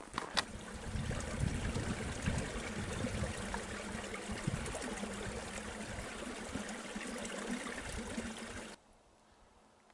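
Small snow-bound mountain stream running and trickling, a steady rush of water that cuts off suddenly near the end.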